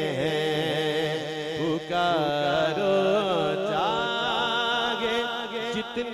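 A man's solo voice singing a naat, a devotional poem in praise of the Prophet, amplified through a microphone. He draws out long, wavering notes with sliding melismatic turns over a steady low drone.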